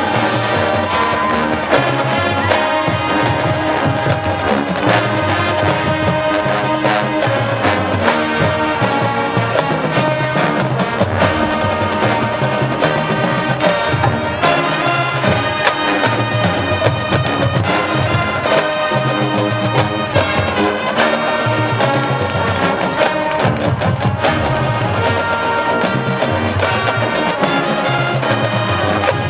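High school marching band playing its field show: brass carrying the tune over drums and percussion, at full volume with a steady beat.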